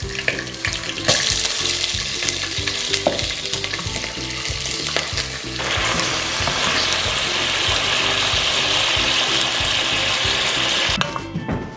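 Freshwater crayfish deep-frying in hot oil in a pot, a steady sizzle with spattering as they are stirred. The sizzle gets louder about halfway through and cuts off sharply near the end.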